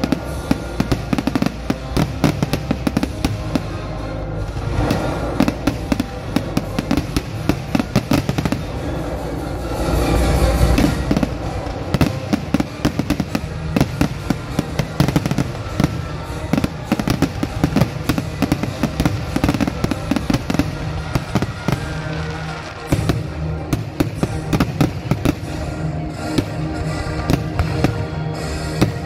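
Fireworks display going off in a dense, near-continuous barrage of bangs and crackles, several a second, with music playing underneath.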